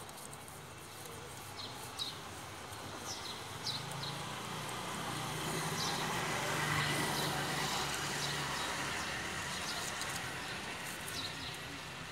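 A motor vehicle passing by: its engine hum and road noise swell to loudest about seven seconds in, then fade. Small birds chirp repeatedly throughout.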